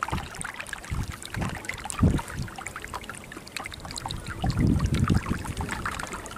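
Water gurgling and lapping against the hull of a small boat moving over open water, in a patter of small splashes. Wind buffets the microphone in short low rumbles, longest about two-thirds of the way in.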